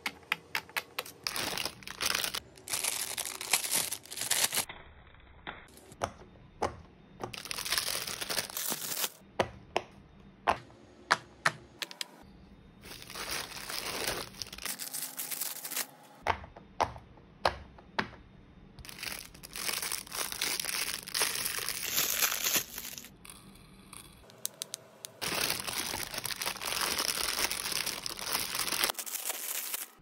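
Silicone pop-it fidget toys being pressed, their bubbles popping in quick sharp clicks. These alternate with longer stretches of crinkling from a plastic mailer bag as the toys are handled.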